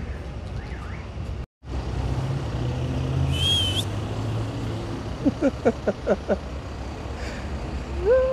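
Street traffic dominated by a city bus's engine running with a low, steady rumble. The sound cuts out for a moment about one and a half seconds in. There is a brief high squeal a couple of seconds later, and a run of short chirping tones around five to six seconds in.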